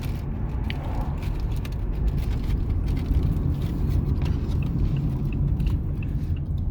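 Steady low rumble of a car's engine and road noise heard from inside the cabin, with a few faint ticks.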